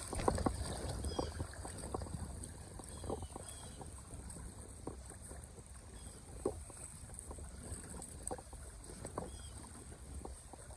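Steady low rush of river water, with scattered small splashes and clicks.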